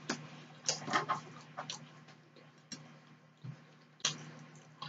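Close-miked mouth sounds of a person chewing food with the lips closed: irregular wet smacks and clicks, a cluster about a second in and single ones every second or so after.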